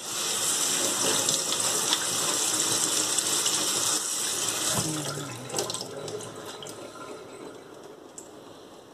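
Kitchen tap running onto chopped chicory in a plastic sieve, the water splashing into a stainless steel sink. About five seconds in the tap is turned off, and water keeps trickling and dripping from the sieve.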